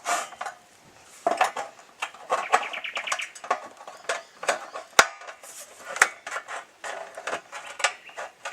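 Corrugated steel roofing sheet being handled and worked with hand tools: irregular metallic clanking and rattling, with a quick run of ringing clicks about two and a half seconds in and sharp clicks about five and six seconds in.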